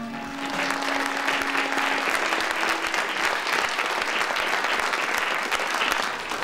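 Audience applauding, with a held music note fading out beneath the clapping in the first three seconds.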